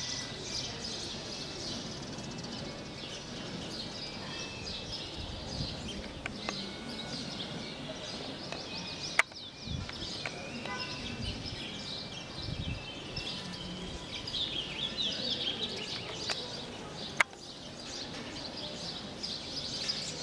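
Many birds chirping and twittering together in a dense, unbroken chorus. Two sharp clicks cut through it, one about nine seconds in and one about seventeen seconds in.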